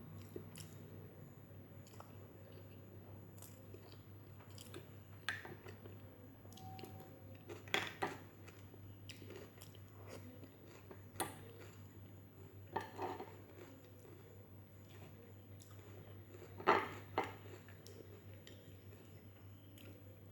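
Close-miked eating sounds: a person chewing chicken dum biryani, with soft mouth noises and a few sharper clicks and clinks, the loudest about 8 and 17 seconds in, over a steady low hum.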